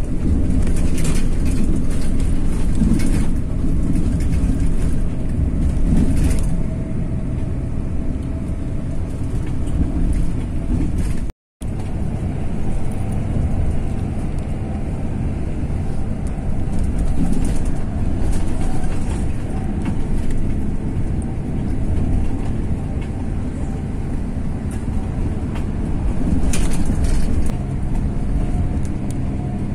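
Intercity bus running on the road: a steady low engine and road rumble that cuts out for a split second about eleven seconds in.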